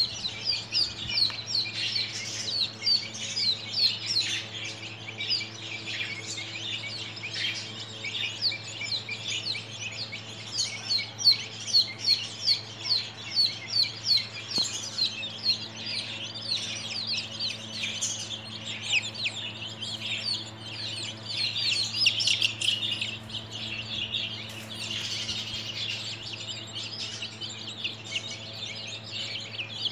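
A flock of 13-day-old domestic chicks peeping continuously: many short, high, falling chirps overlapping, in quick runs.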